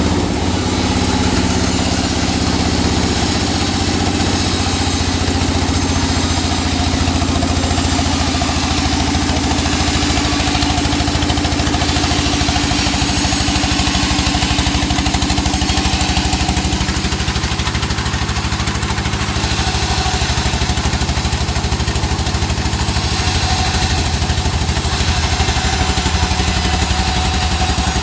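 Engine of a sawmill running steadily while teak wood is sawn, with a hiss in the highs that comes and goes.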